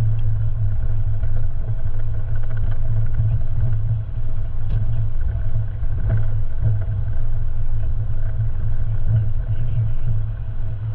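A vehicle's engine and road noise heard from inside the cab, a steady low drone while driving slowly.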